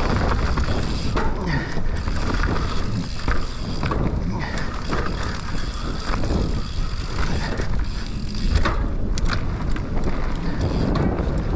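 Mountain bike descending a rough dirt trail at speed: wind buffeting the microphone, with constant knocks and rattles from the bike over the terrain.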